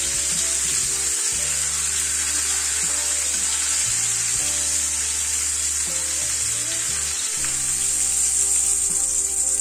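Thin breaded pork scaloppine frying in hot oil in a frying pan, a steady sizzle.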